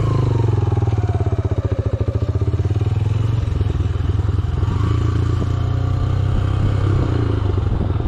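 Motorcycle engine running as the bike turns around on the road, its exhaust pulsing slowly at low speed for the first few seconds, then running more steadily as it pulls away.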